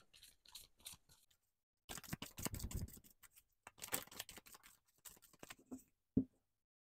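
Oracle card deck being shuffled by hand: quiet papery rustling and snapping of cards, thickest in two short spells, then a single sharp tap near the end.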